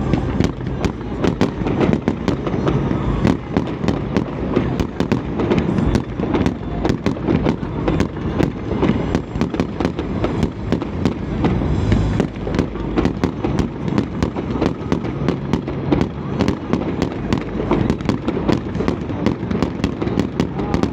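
Fireworks bursting in quick succession: a dense, unbroken run of sharp bangs and crackles over a low rumble.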